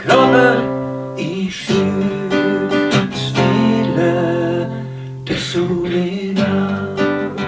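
Strummed acoustic guitar accompanying a man and a woman singing a Norwegian traveller (tater) song in duet, with long held notes.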